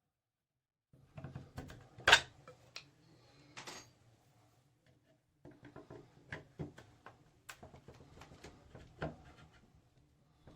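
Handling noise from a shower valve's faceplate and trim being worked loose: a sharp knock about two seconds in, a brief rasp, then a run of small clicks and taps.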